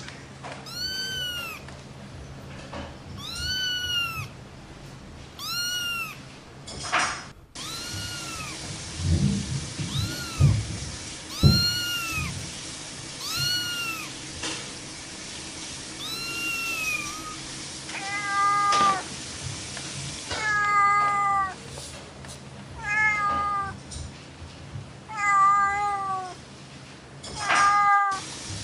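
A cat meowing over and over, one short high call every second or two, each rising and falling in pitch; in the second half the calls turn shorter and flatter. A few dull thumps near the middle.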